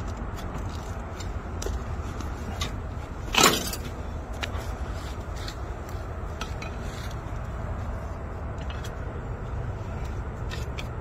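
Scattered light metallic clinks and knocks from work at an open engine block, over a steady low rumble. About three and a half seconds in comes one louder, short scrape that falls in pitch.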